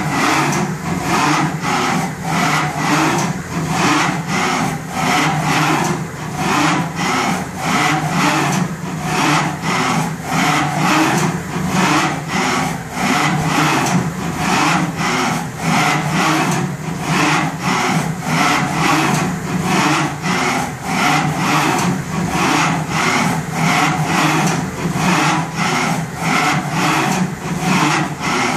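CNC vertical milling machine running a test program: a steady machine hum with a regular pulsing about twice a second.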